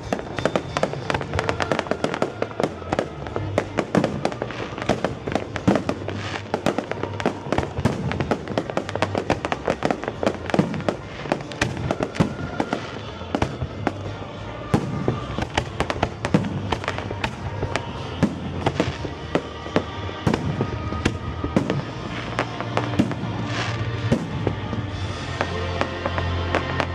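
Fireworks bursting and crackling in quick succession over loud accompanying music; the bangs thin out near the end, leaving mostly the music.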